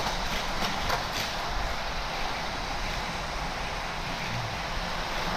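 Die-cast toy cars running along orange plastic Hot Wheels track, with the steady whir of the track's battery-powered boosters and a few light clicks in the first second.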